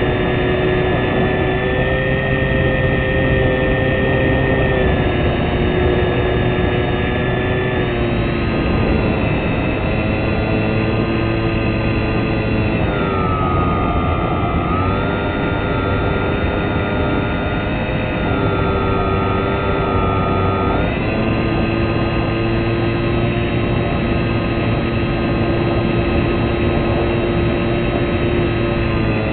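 Fixed-wing model aircraft's motor and propeller heard from an onboard camera in flight: a steady whine over a rushing noise, shifting in pitch a few times, with a dip in the middle and a step back up later on.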